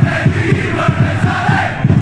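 Large football supporters' crowd singing a chant together in the stands, loud and close.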